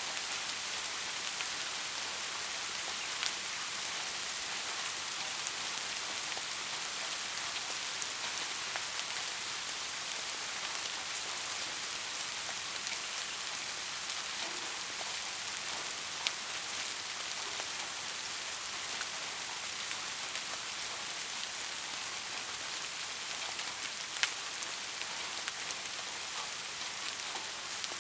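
Steady rain hiss, strongest in the high range, with a few sharper drop ticks standing out now and then, used as continuous sleep white noise.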